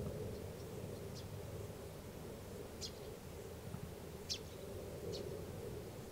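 Quiet outdoor ambience: a steady low hum with several short, high chirps scattered through it, the loudest about two-thirds of the way in.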